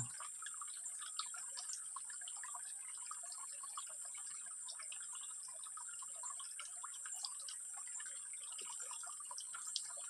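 Faint forest ambience: a steady high-pitched drone with many small, scattered ticks and chirps, and no bird coos.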